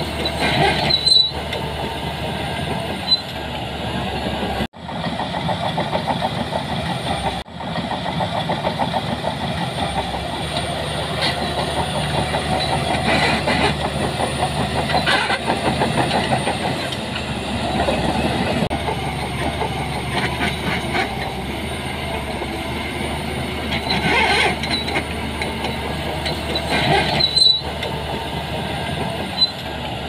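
Shantui crawler bulldozer's diesel engine running under load while its steel tracks clatter as it pushes sand. The sound cuts out briefly twice, about five and seven seconds in.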